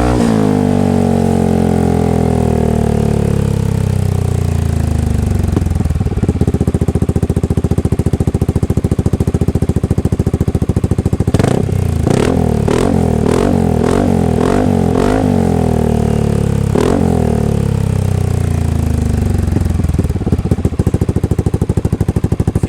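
Yamaha XMAX scooter's single-cylinder engine breathing through an AKA-style aftermarket exhaust with a titanium header and the silencer insert removed, so it runs straight-through. Revs fall back to idle, it idles, then about five quick throttle blips come in a row around the middle and one more a few seconds later before it settles to idle again.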